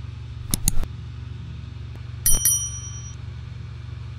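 A couple of quick clicks, then another click and a bright bell ding that rings out for under a second: the added sound effects of a like-and-subscribe reminder animation. A steady low hum runs underneath.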